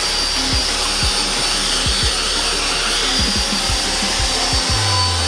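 Electric angle grinder fitted with a sanding disc, running steadily as it sands a wooden board, with background music with a beat underneath.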